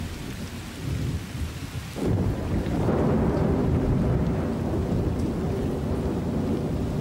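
Thunderstorm at the first rain of the season: rain falling, then about two seconds in a loud roll of thunder breaks and rumbles on.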